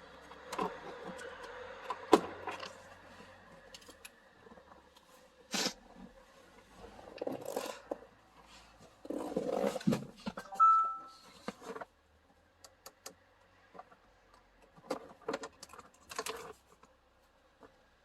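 Scattered clicks, knocks and rustling from hands handling plastic car interior parts during a cabin air filter change. A brief steady tone sounds about ten and a half seconds in.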